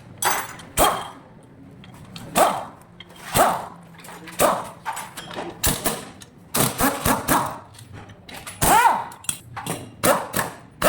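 A series of short, sharp sounds, roughly one a second, some with a brief pitched ring.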